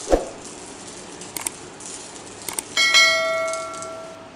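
YouTube subscribe-button animation sound effect: a whoosh, two quick pairs of mouse clicks, then a bright bell chime that rings on and fades away.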